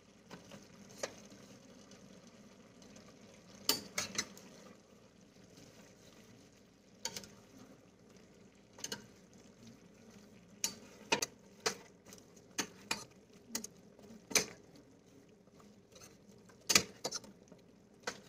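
A metal spoon stirring vegetables in a stainless steel pot. Irregular clinks and scrapes of metal on metal come every second or so, with a few louder knocks.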